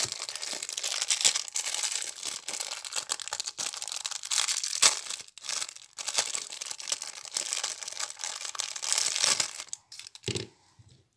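Small clear plastic bag crinkling and rustling as it is handled and opened by hand, a dense run of crackles that stops near the end.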